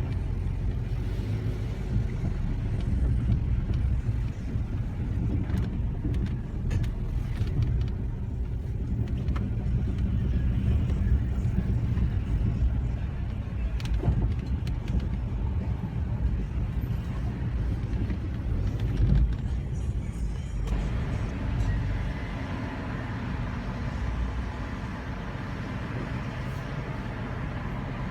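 Nissan car running with a steady low rumble and the grinding noise whose cause the owner is asking about. About two-thirds of the way through, a higher-pitched noisy layer joins it.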